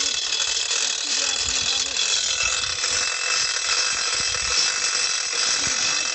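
Hand-operated chain hoist being worked by its hand chain, a dense run of ratchet clicks and chain rattle as it lifts the pipe column out of the borewell.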